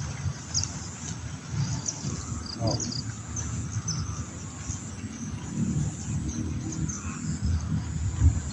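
Outdoor ambience: a low, uneven rumble with scattered short high chirps, and one brief rising call a little under three seconds in.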